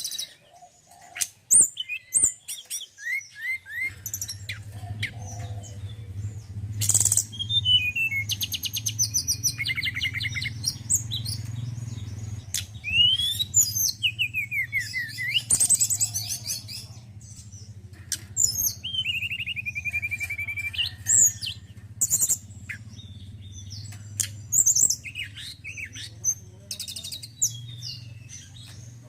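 Male tledekan gunung (Sunda robin) singing: a varied run of chirps, sweeping whistles and fast trills with short pauses between phrases. A steady low hum comes in about four seconds in.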